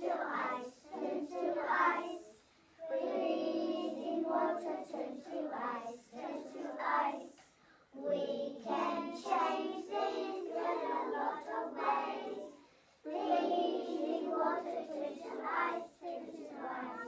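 A class of young children singing a song together in unison, in phrases broken by brief pauses.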